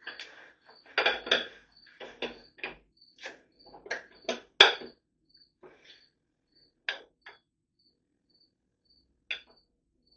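Irregular metal clinks and knocks as the camshaft is worked out of a small-block Chevy 350's block, the sharpest about four and a half seconds in; the cam's lobes are worn flat. A cricket chirps steadily, about twice a second.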